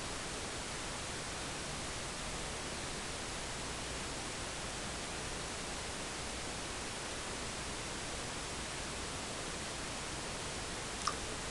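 Steady hiss of recording noise with no other sound, and a single brief tick near the end.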